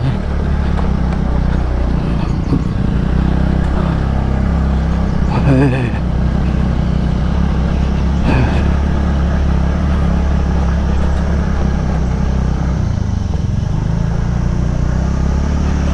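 TVS NTORQ 125 scooter's single-cylinder four-stroke engine running steadily under load on a steep, rough climb. A couple of brief vocal exclamations come over it about a third and halfway through.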